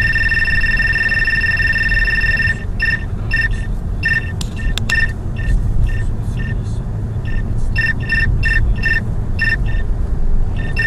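Radar detector alarm picking up a Ramer speed radar: a steady high-pitched alert tone for about two and a half seconds, then breaking into irregular short beeps, over the low rumble of the car cabin.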